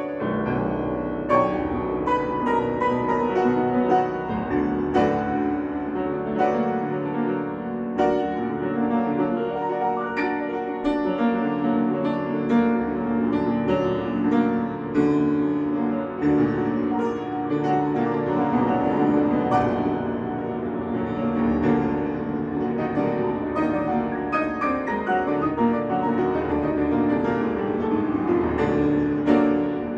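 Solo grand piano being played: a continuous, busy passage of many quick notes, without pause.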